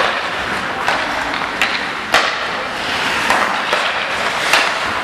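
Ice hockey play: skates scraping the ice and six or so sharp clacks of sticks and puck, the loudest about two seconds in, over a steady arena noise.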